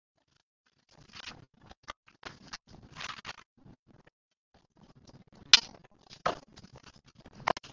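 Rustling and scraping handling noises with three sharp clicks, the loudest about two thirds of the way in.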